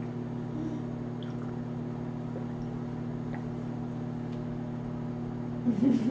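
Steady low electrical hum from a running kitchen appliance, with a brief wavering vocal sound near the end.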